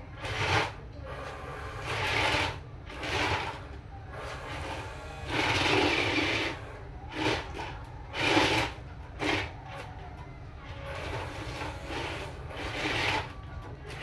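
Toy RC dump truck's small electric drive motor and gearbox whirring in a series of short bursts as it drives in stop-start moves, the longest burst about five to six seconds in. A steady low hum runs underneath.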